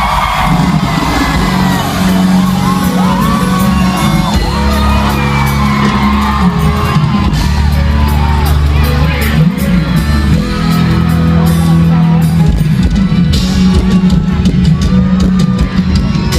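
Live forró band playing loud over a PA with heavy sustained bass, and a crowd whooping and yelling over it.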